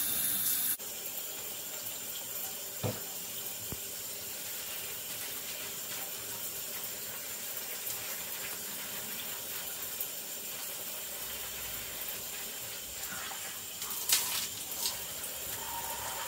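Shower spray running steadily from an overhead showerhead, splashing onto a person lathering her hair. The level drops abruptly just under a second in. A few soft knocks come early, and a louder sharp knock comes about 14 seconds in.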